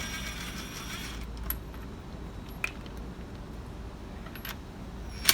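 A few scattered faint metallic clicks and clinks from tools being handled during a wheel change, after a brief scraping noise that fades in the first second.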